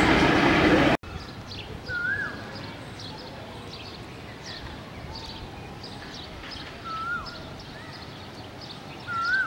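Asian koel (koyal) calling: three short notes that rise and then drop, about 2, 7 and 9 seconds in, over many faint high chirps from smaller birds. For the first second, the steady rumble of an approaching train is heard, then cuts off abruptly.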